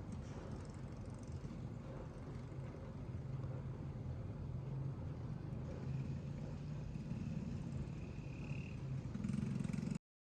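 A motor vehicle's engine running steadily, growing louder and higher near the end, then cutting off abruptly.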